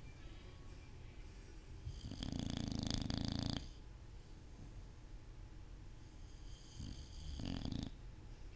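Bulldog snoring in its sleep: a long, loud snore about two seconds in and a shorter one near the end.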